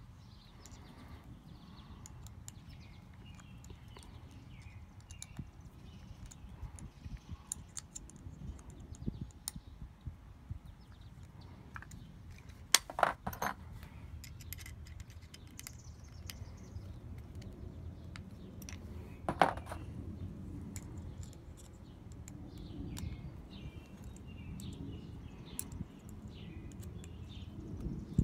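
Small metal parts of a Manfrotto 410 geared tripod head being handled during disassembly: scattered light clicks and taps, with two sharp metallic clinks, one about halfway through and a smaller one about two-thirds of the way.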